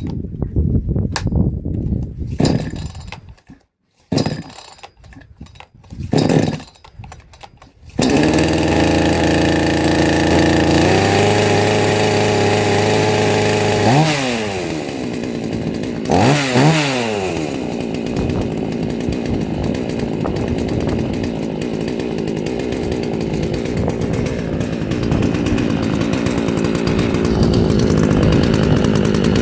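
NAC CST 61-50 AOW two-stroke petrol chainsaw being started: a few short bursts of pull-starting, then the engine catches about eight seconds in and runs steadily. It is revved up and back down twice a few seconds later, then keeps running.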